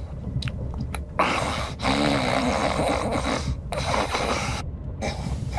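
A person snoring in long, rasping snores broken by short pauses, with a brief snort-like tone about two seconds in, over the steady low rumble of a train compartment.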